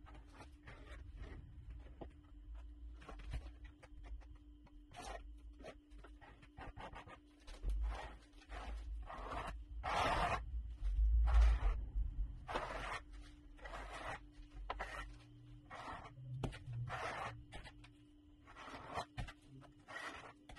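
A metal hand trowel scraping and spreading Feather Finish cement skim coat across a countertop in repeated short, irregular strokes, a few louder ones near the middle.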